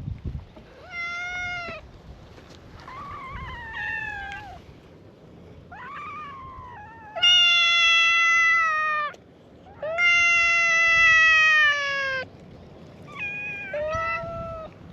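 Stray cats meowing: six drawn-out meows one after another, the two in the middle longer and louder than the rest, each sliding slightly down in pitch.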